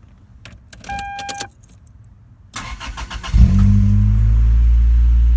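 Keys rattle and a short electronic beep sounds. About two and a half seconds in, the 1997 Toyota Celica's starter cranks briefly, and the engine catches and settles into a steady idle. The car starts without the clutch pedal pressed because the clutch safety switch is bypassed with a jumper wire.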